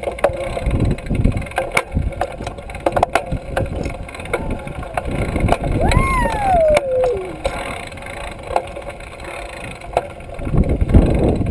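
Riding noise of a trail-a-bike: wind on the handlebar-mounted microphone, with scattered rattles and clicks from the bike. About halfway through, a child's voice gives one long call that slides up and then down in pitch.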